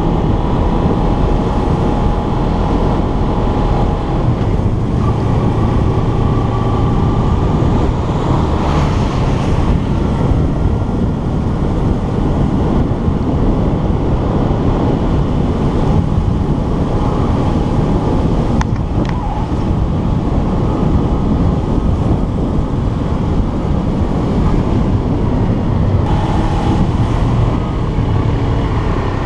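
Motorcycle engine running steadily under load on an uphill ride, heard through the steady rush of wind on the camera's microphone.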